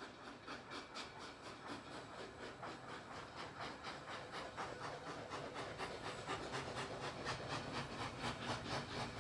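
Steam locomotive working, its exhaust chuffing in a steady rhythm of about three beats a second with a hiss of steam, growing steadily louder.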